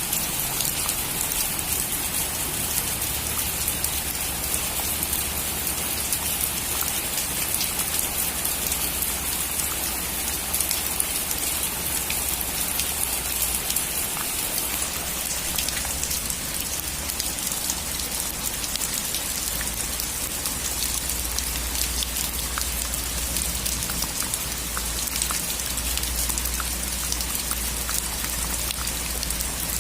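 Steady heavy rain falling on a roof, a dense even hiss with many individual drops ticking through it. A low rumble runs underneath and grows louder in the second half.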